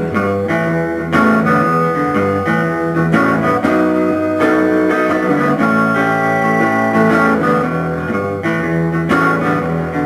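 Acoustic guitar playing a blues instrumental passage, with no vocals.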